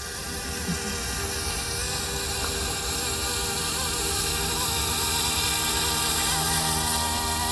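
Electric scale RC helicopter (YU XIANG F119S MD500) in flight, its motor and rotors giving a steady buzzing whine made of several held tones. It grows louder over the first couple of seconds and then holds steady as the heli comes in to land.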